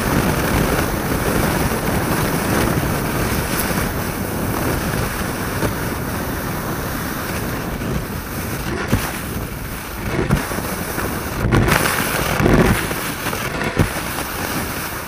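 Cross-country skis gliding fast downhill on groomed snow, heard from a camera mounted on the ski: a steady rushing hiss of wind on the microphone and the ski base on snow. Several knocks and thumps come in the second half, the loudest a couple of seconds from the end, as the skis ride over bumps.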